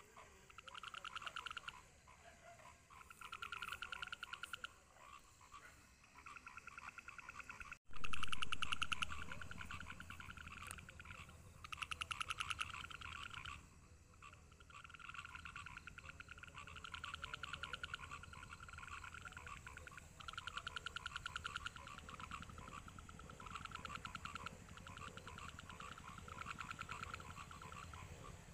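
A background chorus of trilling animal calls: each call is a rapid train of pulses lasting a second or two, repeating every couple of seconds. About eight seconds in, a brief dropout is followed by a sudden louder noise that fades over a second or so.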